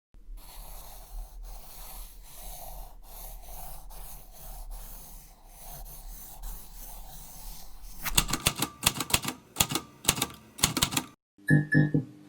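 Soft, uneven noise over a low steady hum, then about three seconds of rapid, sharp clicks. Music starts near the end.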